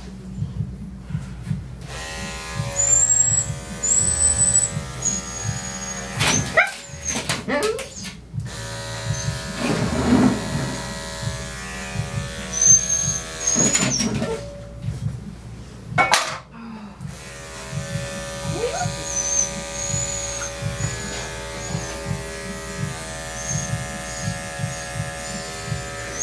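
Electric dog grooming clippers buzzing steadily as they cut through the dog's matted coat. They come on about two seconds in and cut out briefly near the middle. The dog gives a few short whines.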